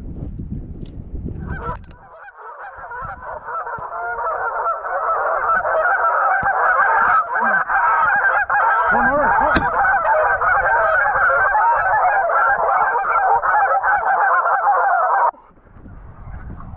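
A large flock of geese honking: a dense chorus of many overlapping calls that starts abruptly about a second and a half in and cuts off about a second before the end.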